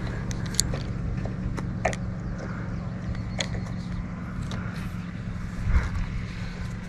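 Steady low motor hum, with a few scattered light clicks.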